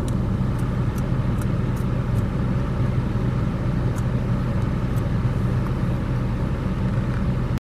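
A vehicle engine idling with a steady low hum. It starts abruptly and cuts off suddenly near the end.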